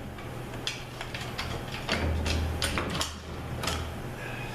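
Metal clinks and knocks of an A-904 automatic transmission being taken apart by hand: the intermediate band strut released and the forward and direct clutch drums worked out of the case. A run of sharp irregular clicks over a low steady hum.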